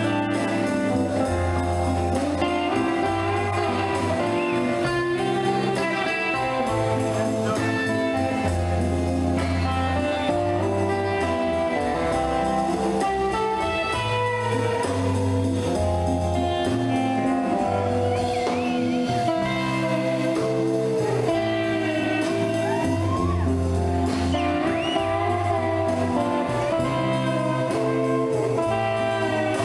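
Background music with guitar over a slow, stepping bass line.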